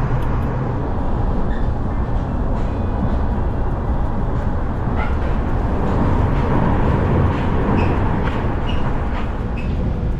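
Steady running rumble of a passenger train, heard from inside the car as it travels along the line, with faint short high tones in the second half.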